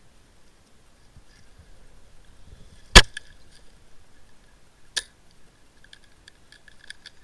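Tokyo Marui M24 spring-powered bolt-action airsoft sniper rifle firing once with a loud, sharp crack about three seconds in. A weaker sharp click follows two seconds later, then a quick run of small clicks near the end.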